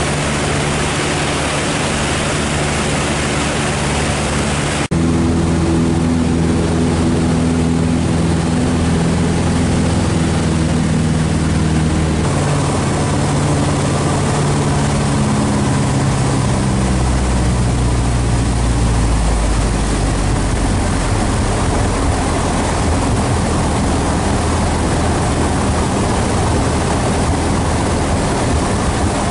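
Maule MX-7's engine and propeller drone, heard from inside the cockpit, with an abrupt change in the sound about five seconds in. From about halfway through, the engine note falls over several seconds and settles lower: power being reduced as the plane turns final for landing.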